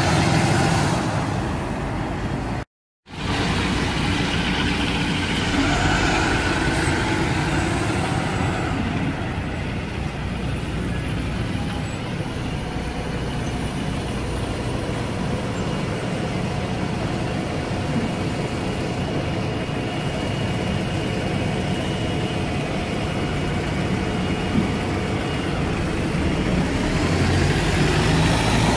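A bus and road traffic running and passing by, a steady engine and road noise with a faint whine. The sound drops out completely for a moment about three seconds in, and the noise swells a little near the end as a vehicle comes closer.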